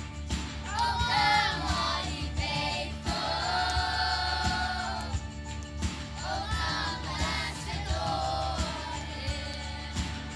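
Choir singing a Christian song over a steady musical accompaniment with a beat, the voices coming in phrases of a second or two.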